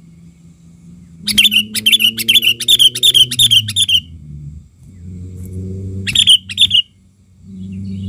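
Sooty-headed bulbul giving loud, harsh chattering calls: a fast run of about ten, three or four a second, then two more a couple of seconds later. A low hum runs underneath.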